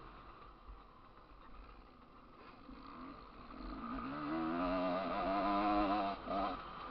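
Motocross bike engine heard from a camera mounted on the bike: low at first, then revving up hard about three and a half seconds in, its pitch wavering up and down, with a brief drop in revs near the end.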